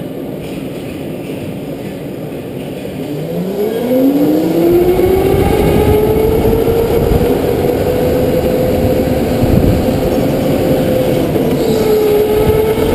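Go-kart accelerating on a track: from about three seconds in, a whine rises quickly in pitch and then holds steady at speed, with a brief dip near the end, over a steady noisy rush.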